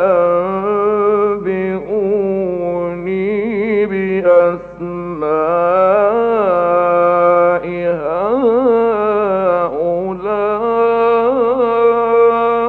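Male Quran reciter chanting in the melodic mujawwad style: long, held, richly ornamented notes in several phrases with brief breaths between them, stopping near the end. It is an old radio recording with a narrow, muffled sound and a steady low hum underneath.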